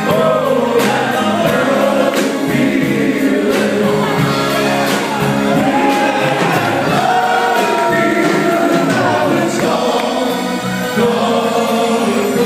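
A group singing together as a serenade, one voice into a microphone, over music with a regular beat.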